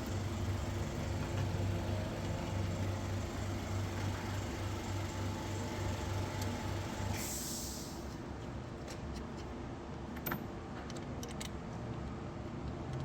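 Toyota Passo Moda's three-cylinder engine running steadily at idle, with a short hiss about seven seconds in and a few light clicks after it.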